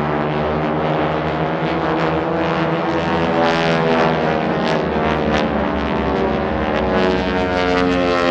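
Aircraft engine running: a steady drone of many tones whose pitch slowly sags and then rises again, over a steady low hum.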